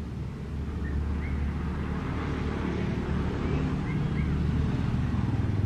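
Diesel-electric locomotive hauling a passenger train on approach, its engine a steady low drone that grows louder. Birds chirp a few times over it.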